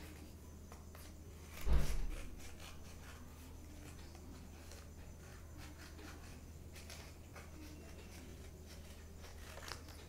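Hand scissors snipping through stiff paper, with paper rustling and small clicks as a stencil shape is cut out; a louder low thump about two seconds in. A steady low hum runs underneath.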